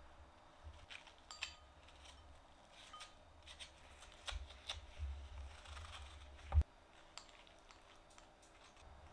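Seeds and stringy pulp being scooped out of a halved acorn squash and dropped into a ceramic bowl: scattered soft scrapes and clicks, with one sharper knock about six and a half seconds in.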